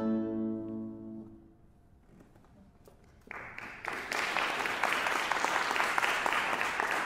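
The final chord of two classical guitars ringing out and dying away, then, after a short quiet pause, audience applause starting about three seconds in and carrying on steadily.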